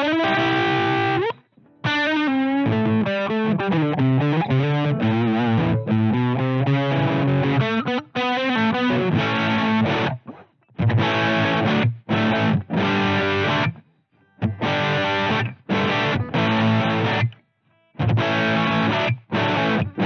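Electric guitar played through a Twinote Boogie Distortion pedal that is switched on, giving a distorted tone. It opens with single-note lines that bend and waver in pitch, then moves to chord riffs cut into short stabs by abrupt stops in the second half.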